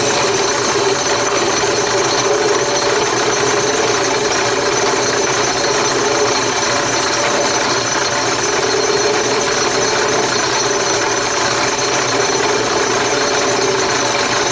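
A drill press running steadily with a half-inch sanding drum in the chuck, the drum sanding the inside edge of a cut-out in an MDF board, under a steady motor hum.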